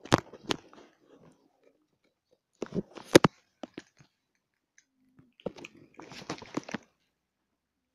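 Domestic cats crunching dry kibble, in several short bursts of crisp crunches with pauses between.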